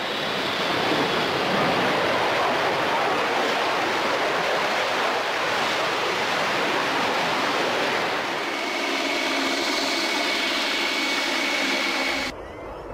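Concorde's four Olympus 593 turbojets running with a loud, steady roar through touchdown and rollout on landing. About eight seconds in, a whine with several steady tones joins the roar. Near the end the roar cuts off abruptly, leaving a quieter low rumble.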